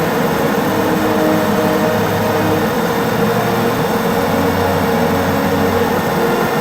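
Super Puma helicopter in flight: a loud, steady drone with several held humming tones over it.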